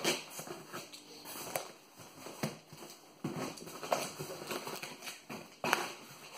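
Packing tape being torn and slit with scissors along the seam of a cardboard box: irregular snips, scrapes and clicks with rustling of the cardboard.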